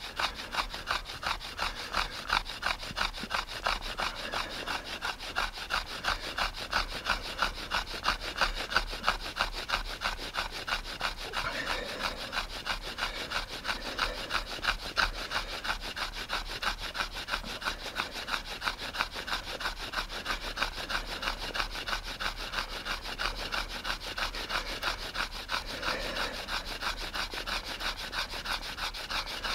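Fire plough friction fire: a shaped stick of dead spruce rubbed rapidly back and forth along a groove in a flat spruce board, making a steady, rhythmic wooden rasping scrape stroke after stroke.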